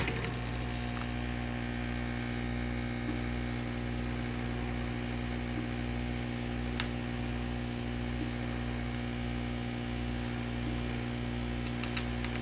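A loud electric machine on the repair bench running with a steady hum, with a single sharp click about seven seconds in.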